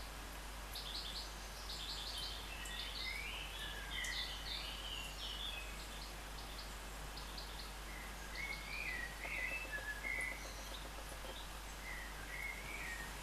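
Small songbirds chirping and singing, with quick runs of repeated high notes and short twittering phrases that come and go, over a steady background hiss.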